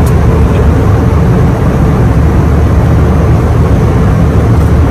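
Airliner cabin noise: a steady, loud, low drone of engines and rushing air.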